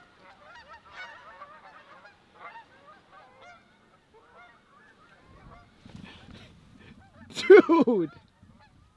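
A flock of geese honking overhead, many calls overlapping, thinning out after about four seconds. Near the end comes one short, loud vocal sound from a person close by, falling in pitch.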